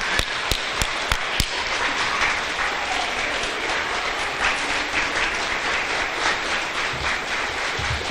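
Audience applauding. A few loud, close hand claps stand out in the first second and a half, then the clapping goes on as a steady, dense applause.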